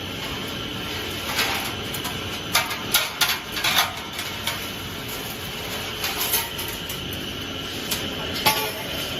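Steel wire drawing production line running: a steady machine whirr with a sustained high whine, and irregular sharp clattering knocks, a cluster of them between about one and four seconds in and a few more near the end.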